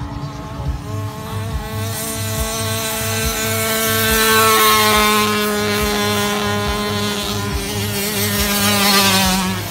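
Small 65cc dirt bike engines buzzing at speed, getting louder about four seconds in as the bikes pass, with the pitch sinking slightly. A low steady beat about twice a second runs underneath.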